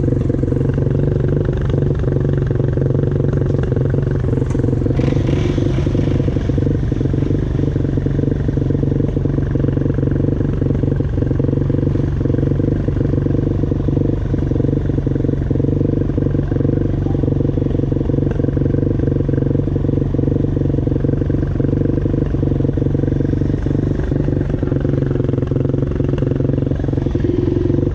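ATV engine running at a steady, unchanging pitch, with light rattles and clicks over it.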